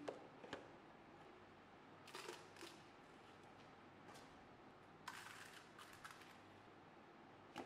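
Faint clicks and rustles of a hard plastic container and PVC pipe being handled, in a few short bursts, the longest about five seconds in; otherwise near silence.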